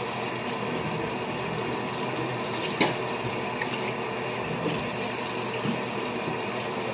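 Bathroom sink tap running steadily while hands are washed under the stream, with a brief sharp knock about three seconds in.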